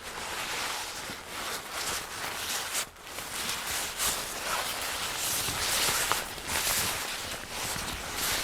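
Jacket fabric rustling and swishing as it is moved, an unbroken run of irregular rustles.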